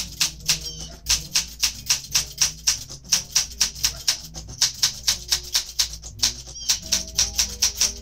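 1968 Olympia SM8 manual typewriter being typed on steadily, its type bars striking the paper in a quick even run of sharp clacks at about five keystrokes a second.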